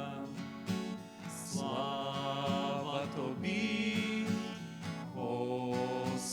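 A group of voices singing a slow Ukrainian hymn in unison, holding long notes, over guitar accompaniment.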